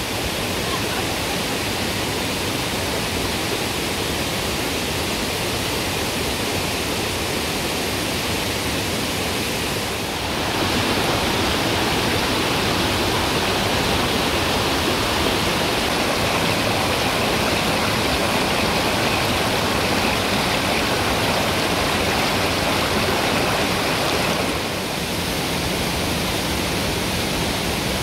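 Waterfall rushing steadily, a dense roar of falling water. It gets louder about ten seconds in and drops back a few seconds before the end.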